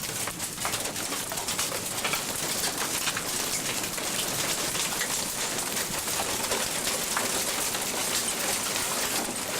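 Steady storm noise: rain falling in an even hiss with scattered ticks of drops.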